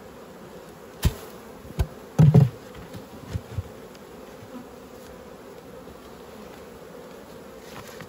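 Honeybees buzzing steadily around an open hive. A few sharp knocks come between about one and three and a half seconds in, the loudest a quick cluster about two seconds in, as the hive lid is set down onto the polystyrene hive box.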